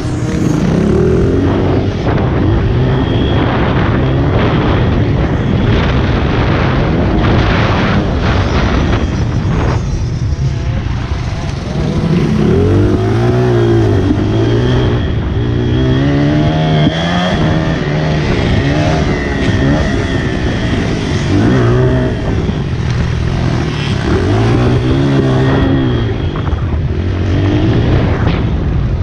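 Honda CRF80 pit bike's small single-cylinder four-stroke engine being ridden hard, revving up and dropping back over and over as it is throttled out and eased off through the corners of a dirt track.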